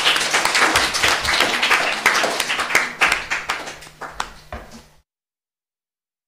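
A small group of people applauding, the clapping thinning out and dying away; the sound then cuts to dead silence about five seconds in.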